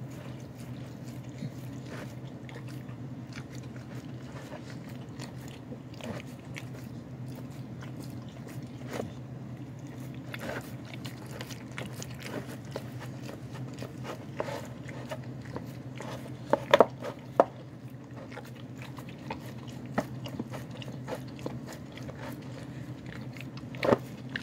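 Dog eating from a bowl: irregular chewing and crunching of bone bits in soft food, with a few louder crunches or knocks about two-thirds through and again near the end. A steady low hum runs underneath.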